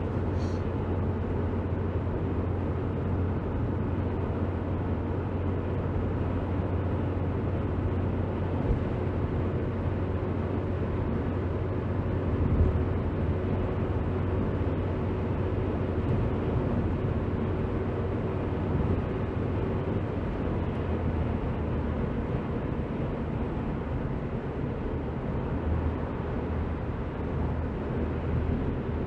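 Steady road and engine noise heard from inside a moving car's cabin, mostly a low rumble. A faint steady tone joins it for about ten seconds in the middle.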